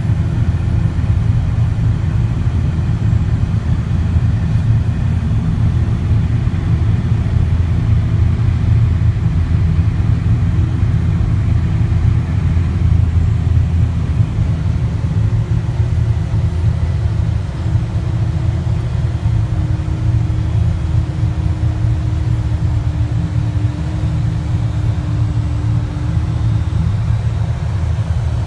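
Steady low rumble from inside a pushback tug's cab as it pushes an Airbus A380 back, mixed with the A380's two outboard engines (1 and 4) running at idle. A steady hum sits over the rumble and drifts slightly in pitch.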